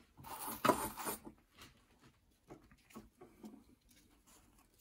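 Hands handling tools and wire around a guitar control plate: a rustle over the first second, then scattered light clicks and soft taps.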